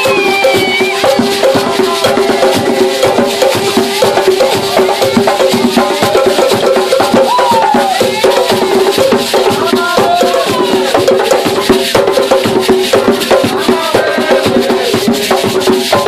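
Live Gwo ka music: ka hand drums beat a steady, dense rhythm while a calabash shaker (chacha) rattles along with it.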